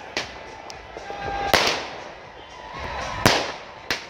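Fireworks going off overhead: four sharp bangs, the loudest about a second and a half in and just past three seconds, each followed by an echoing tail. A faint whistle comes just before the two loudest bangs.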